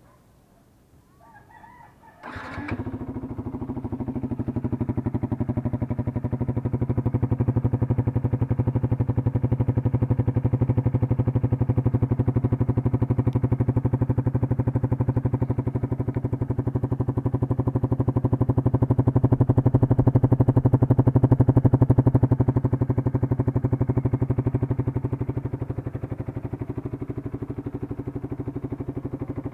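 Yamaha R15 V2's single-cylinder four-stroke engine starting up about two seconds in, then idling steadily through a Nob1 Titan aftermarket exhaust with its dB killer fitted.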